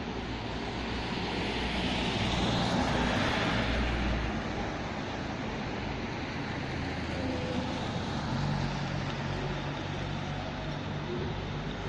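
Urban road traffic: a steady rumble of engines and tyres, swelling as a vehicle passes about two to four seconds in.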